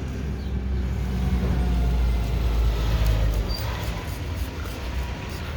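Low engine rumble of a motor vehicle, swelling around the middle and easing off toward the end.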